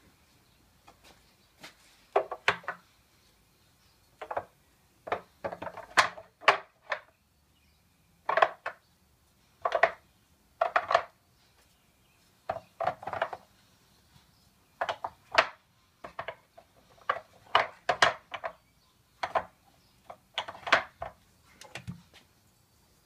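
Painted wooden blocks clacking against one another and against the wooden box of a child's block wagon as they are set in one by one: a string of short hollow wooden knocks, coming in small clusters every second or two.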